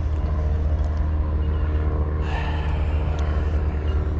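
Steady low rumble of motor traffic, with a constant engine drone.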